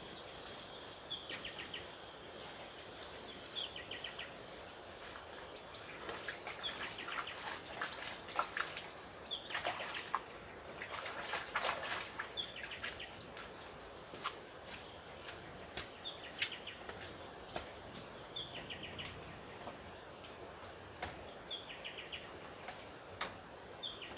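Forest ambience: insects trilling steadily at a high pitch, with a short falling call repeated about every two to three seconds. Scattered clicks and rustles come thicker around the middle.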